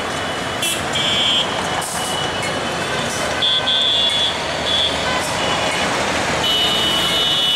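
Diesel-hauled passenger train rolling slowly around a sharp curve with a steady rumble, its wheels squealing high-pitched several times: short squeals about one, three and a half and five seconds in, and a longer one near the end.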